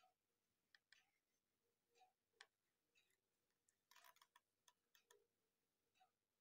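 Near silence, with faint scattered clicks and a short, slightly denser patch of clicking and rustle about four seconds in: small handling noises.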